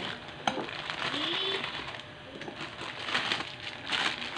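Plastic instant-noodle packet crinkling as it is handled and emptied, with a sharp click about half a second in.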